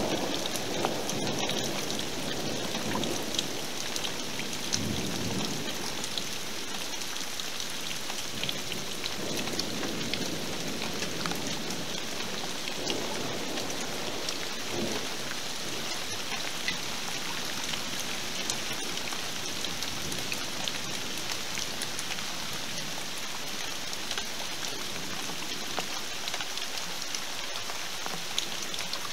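Steady rain falling in a thunderstorm, a dense even hiss of drops. Faint low rumbles of thunder swell under it a few times.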